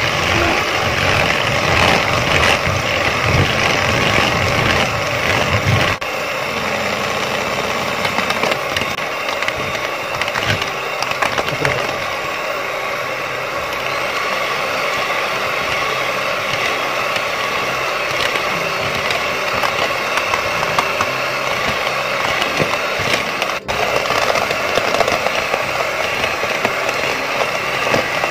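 Electric hand mixer running steadily, its twin beaters whipping eggs and sugar into a pale foam in a plastic bowl. It is rougher for the first six seconds, then settles to a steadier run, with one very brief break near the end.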